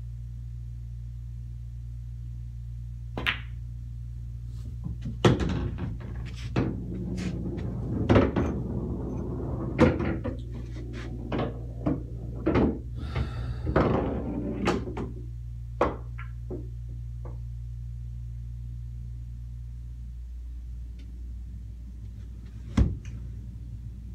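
Pool balls: a sharp cue-tip click on the cue ball, then a run of ball-on-ball clacks, cushion knocks and balls dropping and rolling inside the table for about ten seconds, over a steady low hum. Another single sharp click comes near the end.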